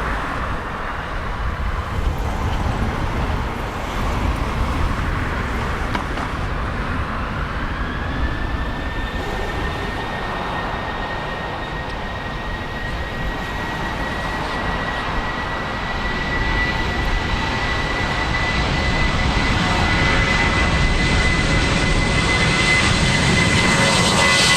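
Aircraft engine whine: a high tone that glides up about eight seconds in and then holds steady, the sound growing louder toward the end, over wind buffeting the microphone.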